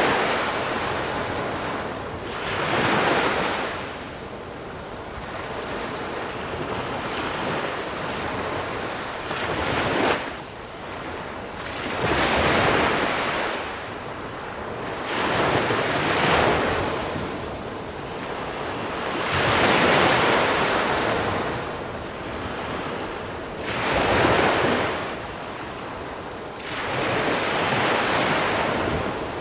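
Small sea waves breaking onto a shore of small pebbles and washing back, one wave every three to four seconds, each swelling and fading.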